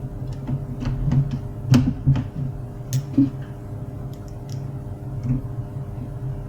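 Scattered sharp clicks and knocks of hard parts being handled, densest in the first half, over a steady low hum.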